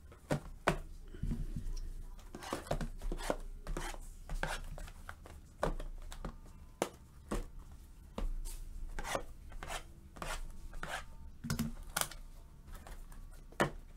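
Cardboard boxes of trading cards being picked up, set down and slid about on a tabletop: irregular knocks and taps with short scraping and rustling in between.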